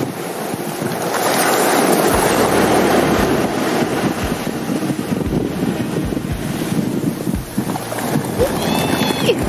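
Small surf breaking and washing up a sand beach, swelling about a second in, with wind buffeting the microphone in repeated low thumps. A brief high chirp comes near the end.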